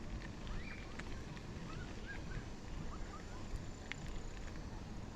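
Mountain valley stream running steadily, with small birds chirping briefly now and then over the rushing water.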